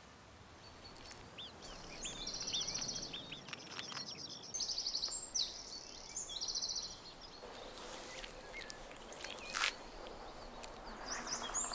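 Small birds calling over a faint outdoor hush: high chirps, then several quick runs of rapidly repeated trilled notes.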